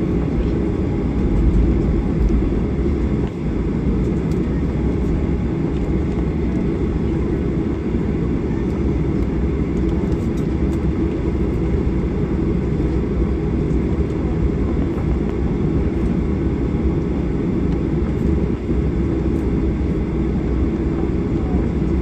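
Cabin noise of a Boeing 737-800 taxiing, its two CFM56-7B26 turbofans at low taxi power: a steady low rumble heard from inside the cabin.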